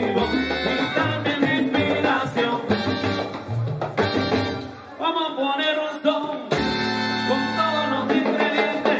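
Live salsa band playing, with a man singing lead into the microphone. The music thins out briefly about five seconds in, then the full band comes back in with a strong bass.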